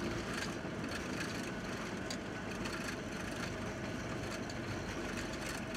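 Steady rumble and hiss inside a Boeing 717 cockpit during the landing rollout, with the rear-mounted Rolls-Royce BR715 engines in reverse thrust and the wheels rolling on the runway.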